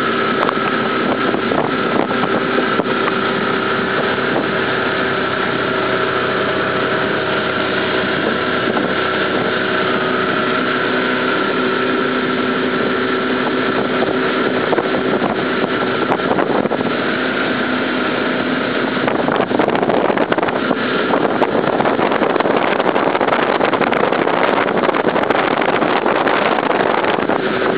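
Motorboat under way: its engine runs with a steady hum over the rush of water spray and wind. The rushing grows louder about two-thirds of the way through.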